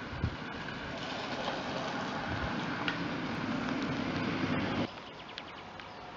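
A car passing close, its engine and tyre noise growing steadily louder, then cutting off suddenly about five seconds in.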